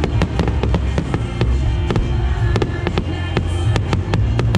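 Fireworks going off in quick succession: an irregular run of sharp bangs and cracks, roughly three a second, over a steady low rumble, with music playing underneath.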